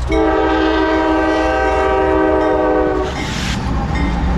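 Multi-note air horn on Norfolk Southern rebuilt Dash 9-44CW / AC44C6M locomotive #4480, sounding one long blast of about three seconds that cuts off suddenly. After it, the rumble of the lead diesel locomotives passing close by.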